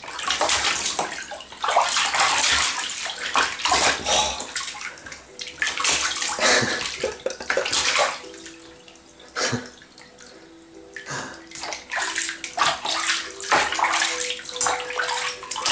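A baby splashing water in a plastic infant bathtub with his hands, in irregular splashes with a quieter lull just past the middle.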